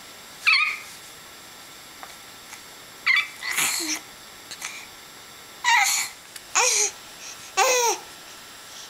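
A five-month-old baby vocalizing in short, high-pitched squeals and babbles, about five of them with pauses between, some sliding down in pitch.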